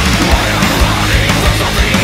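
Heavy metal music: distorted guitars over rapid, pounding drums.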